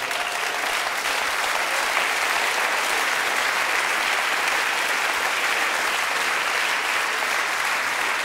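A studio audience applauding in a long, steady round of clapping.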